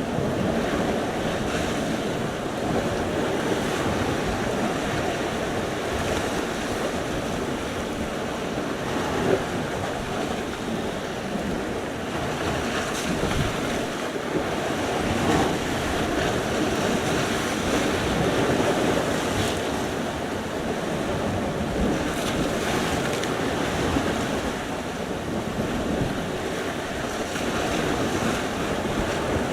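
Sea surf: waves washing onto the shore in a continuous rushing that swells and eases gently.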